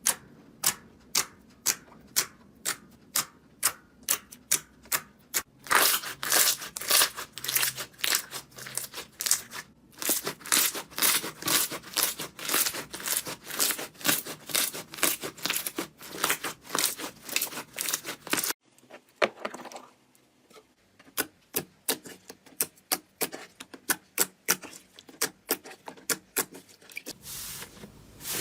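Slime being pressed and squeezed, giving a run of sharp crackling clicks and pops, several a second. The sound breaks off about two-thirds of the way through and goes on as a quieter, sparser crackle.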